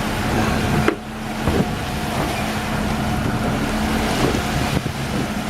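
Boat engine running steadily, with wind and water noise. A brief knock comes about a second in.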